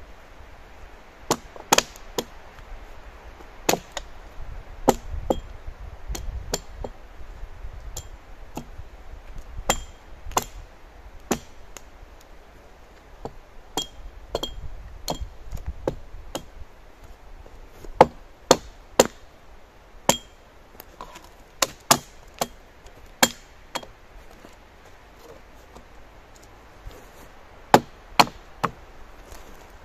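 A hand tool striking wood: a long run of sharp, irregularly spaced knocks, one or two a second, some with a brief metallic ring, like a hatchet or axe chopping.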